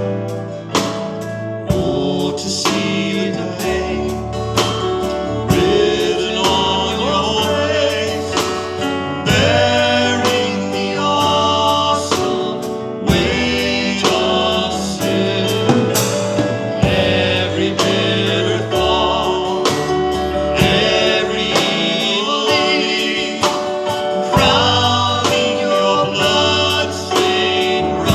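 Worship song: voices singing a melody over instrumental backing with a steady beat.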